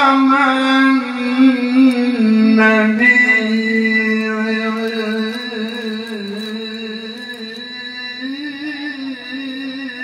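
A man reciting the Quran in the melodic tilawah style, holding one long ornamented note into a handheld microphone. The note wavers in pitch and steps down slightly about two seconds in, then slowly grows quieter.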